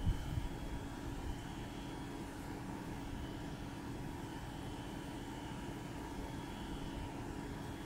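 Aquarium air pump driving sponge filters, running with a steady low hum and rumble and a couple of faint constant tones; a brief low bump right at the start.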